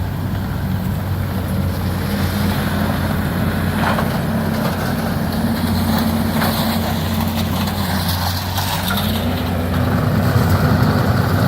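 Excavator's diesel engine running steadily under load, its note rising to a higher speed about three-quarters of the way through, with a few knocks from the demolition work.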